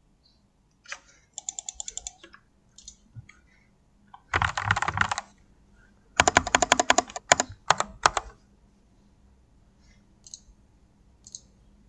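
Typing on an RK61 mechanical keyboard with Gateron Milky Yellow linear switches. The keystrokes come in quick bursts: a short run, then a dense flurry, then a fast run of distinct clacks, with only a few single key presses near the end.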